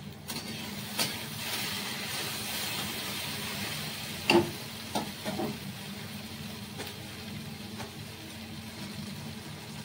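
Food sizzling in a frying pan, a steady hiss that is strongest in the first few seconds. A few sharp utensil clinks come through, the loudest about four seconds in.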